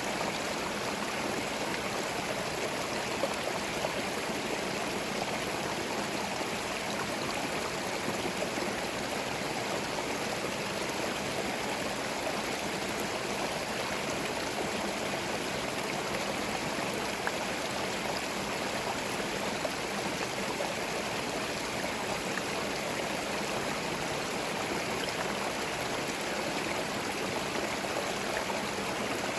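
A small forest stream flowing steadily over stones, a continuous rushing and gurgling of water without change.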